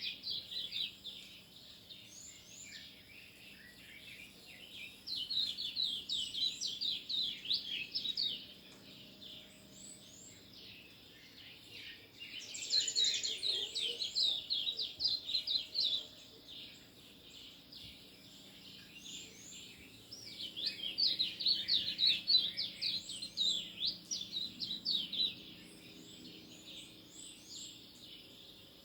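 Small birds chirping in three bouts of rapid, high chirps, each lasting several seconds, with fainter scattered chirps in the quieter stretches between.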